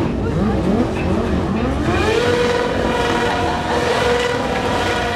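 Stunt motorcycle engine revving in a few quick rising blips, then held at high revs while the rear tyre spins and smokes on the tarmac.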